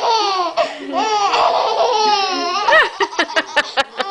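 A baby laughing hard in long, high-pitched squeals, breaking up a little before three seconds in into a quick run of short bursts of laughter.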